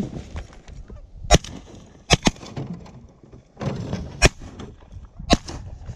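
Volley of shotgun fire from several hunters' shotguns: five sharp shots, the first about a second and a half in, two close together near two seconds, then two more about a second apart later on.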